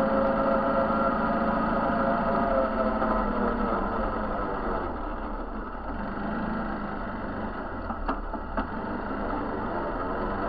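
A vehicle's engine running steadily while driving along a dirt track, its pitch easing down slightly a few seconds in. Two sharp knocks, about half a second apart, come late on.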